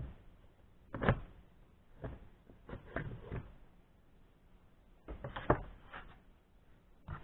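A Stihl 029 chainsaw cylinder being worked off the crankcase and set down on a workbench: a handful of short knocks and clunks, the loudest about a second in and another cluster about five seconds in.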